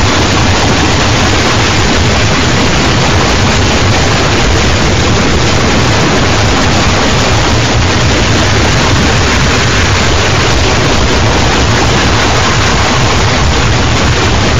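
Harsh noise wall: a loud, dense, unchanging wash of distorted noise with no rhythm, pitch or breaks, made with an old G.M.X. 802V unit.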